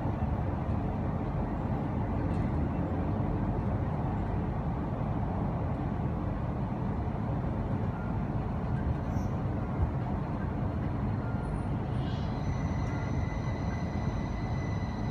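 Electric Heathrow Express train running at speed, heard from inside the carriage as a steady, even rumble. About twelve seconds in, a high steady whine of several tones joins it.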